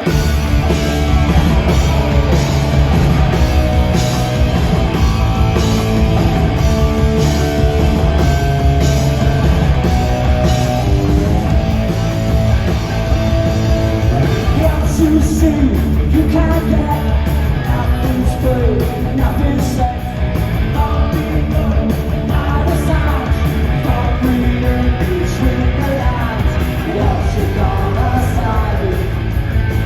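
Punk rock band playing live at full volume with distorted electric guitars, bass and drums, kicking in abruptly at the start; a man's shouted vocals come in about halfway through.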